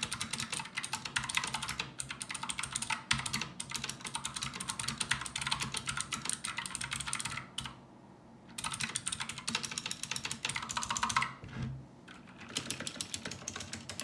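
Fast, steady typing on a full-size budget mechanical keyboard: a dense run of key clicks that stops for about a second twice, about halfway and near the end. After the second pause the typing continues on an OMOTON MK201 tenkeyless keyboard with clicky Outemu Blue switches.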